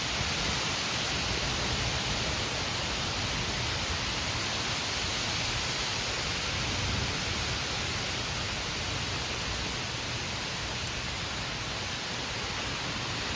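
Heavy rain and wind of a severe thunderstorm, a steady even hiss.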